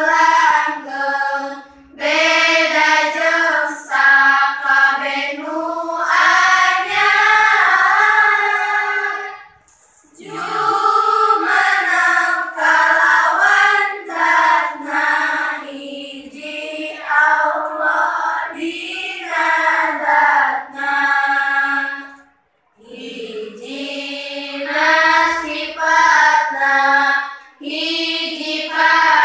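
A class of girls chanting a nadom, a versified religious text, together in unison, one sung line after another with short breaths between phrases and two brief pauses, about ten seconds in and after about twenty-two seconds.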